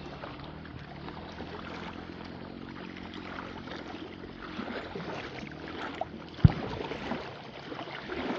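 Jet ski engine running at low speed with a steady engine note, over water splashing; a single sharp thump about six and a half seconds in.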